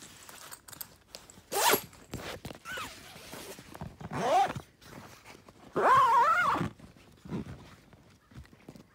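Footsteps and handling rustle with a sharp rasp about two seconds in. Three short, wavering high-pitched squeals or calls of unknown source come later, the loudest about six seconds in.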